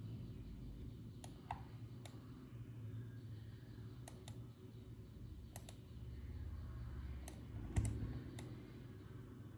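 Scattered clicks of a computer mouse and keyboard, about a dozen, several in quick pairs, over a low steady hum.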